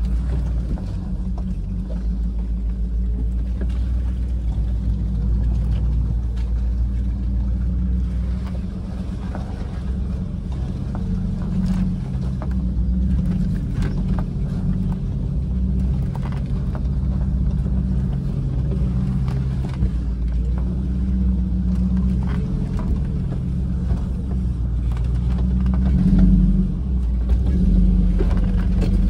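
Range Rover P38's 4.6-litre V8 engine running steadily at low revs under load as the truck crawls up a rocky track, heard from inside the cabin. Occasional knocks come from the tyres and suspension working over the rocks.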